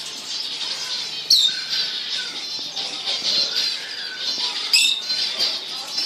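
A flock of small aviary birds chirping and twittering together in a dense, unbroken chorus. Two louder, sharp calls drop in pitch, one about a second in and another near the end.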